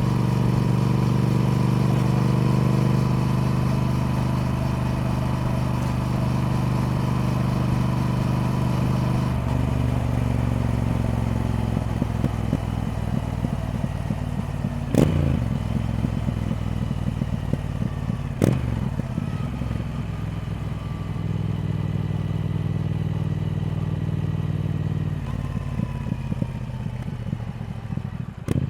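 Triumph Speed Twin's parallel-twin engine running steadily under way. The engine note drops and roughens about a third of the way in and steps back up near the end, with two sharp knocks in the middle.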